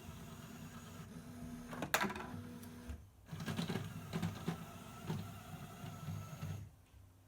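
LEGO Mindstorms electric motors driving the vending machine's plastic gears and mechanism, likely handling the inserted coin. A steady whir ends in a sharp clack about two seconds in, and after a short pause a second, rattlier run of whirring and clicking stops shortly before the end.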